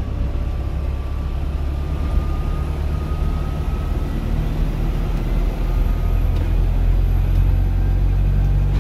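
Optare Metrodecker double-decker bus under way, heard inside the upper deck: a steady low drivetrain and road hum that grows a little louder about halfway through.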